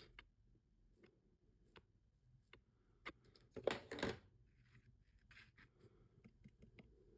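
Faint taps and light clicks of an ink pad being dabbed against the edge of a paper tag, with a brief rubbing scrape about three and a half seconds in.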